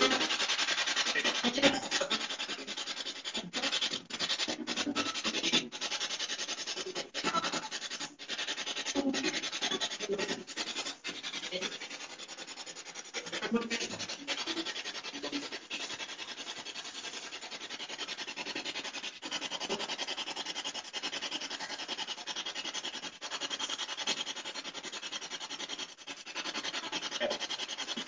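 Continuous loud hiss of static, broken every so often by brief cut-outs, with faint low fragments of sound beneath it.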